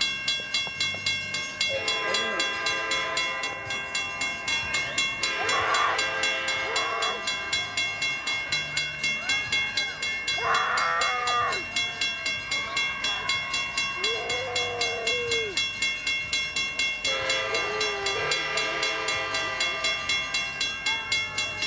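Approaching locomotive sounding a Nathan P2-K5LA five-chime air horn in several long chord blasts, over the steady, rapid dinging of a grade-crossing bell.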